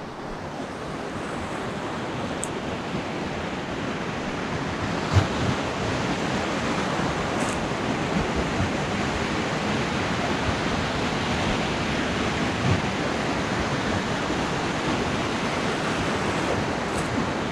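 Ocean surf breaking and washing up a sandy beach: a steady rush that builds over the first few seconds. A brief knock about five seconds in.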